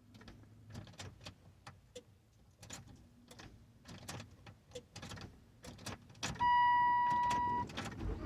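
Scattered light clicks and taps inside a car, then a steady high electronic beep lasting about a second, the loudest sound here. A low rumble comes up right at the end.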